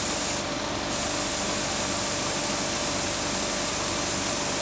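Steady hiss with a faint steady hum of compressed-air equipment in a paint spray booth, where a small compressed-air-driven engine spins freshly painted flywheels.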